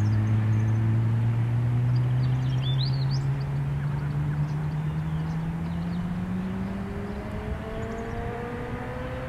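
A low engine drone, steady in tone, that slowly rises in pitch and fades. A bird chirps briefly about three seconds in.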